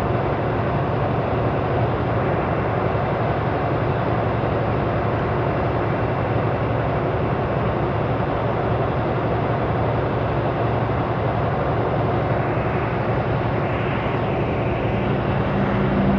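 Steady engine drone and road noise inside a semi truck's cab while it is driving.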